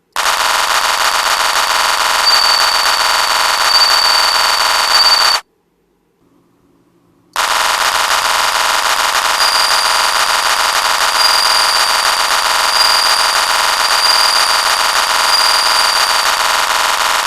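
Bell crickets (suzumushi) chirping: a loud, rapid, buzzing trill with a steady high ring. It stops suddenly about five seconds in and starts again about two seconds later.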